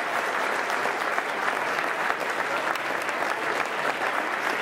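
A large crowd applauding: a steady, dense clatter of many hands clapping without a break.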